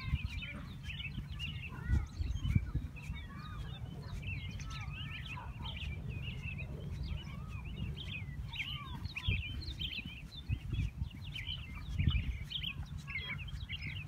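A chorus of many birds chirping and calling at once, short quick notes overlapping throughout, over a low rumble with a few dull thumps.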